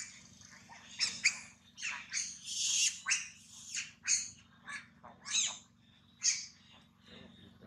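A rapid string of about a dozen short, high-pitched squawking calls, some sliding up or down in pitch, which stop about six and a half seconds in.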